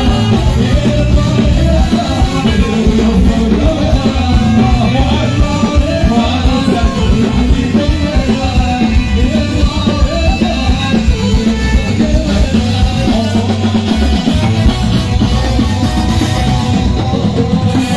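Live Moroccan chaabi band music through a stage PA: keyboards, guitar and drum kit playing together under a wavering melody line, with no break.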